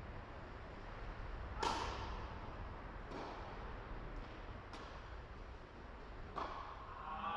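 Tennis balls struck by rackets in a singles rally: sharp hits roughly every one and a half seconds, the loudest about a second and a half in.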